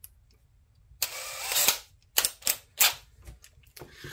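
A drill bit being picked from its case and fitted to a cordless drill: a short rattling scrape, then several sharp clicks.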